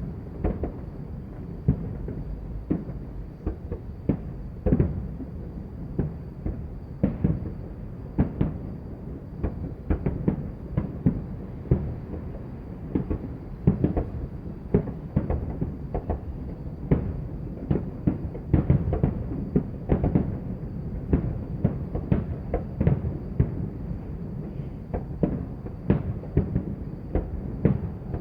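Fireworks and firecrackers going off: a dense, unbroken run of bangs and booms, several a second, over a low rumble.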